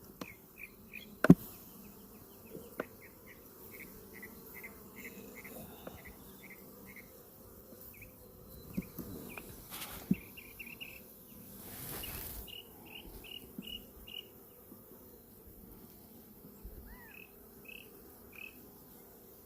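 Honeybees humming faintly around an opened, smoked hive, over runs of short high chirps, a few a second, from another insect. A few sharp knocks sound now and then, one about a second in and another about ten seconds in.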